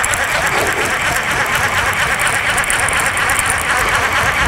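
Sea-fishing casting reel being wound in after a cast: a steady mechanical whirr.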